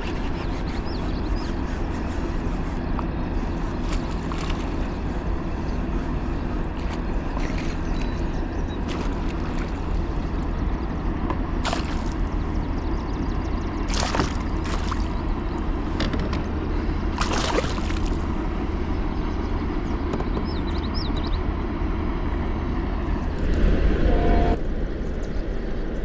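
Water sloshing and splashing around a kayak while a hooked pike is fought, over a steady low rumble. There are a few sharp splashes or knocks, and a louder surge about 24 seconds in.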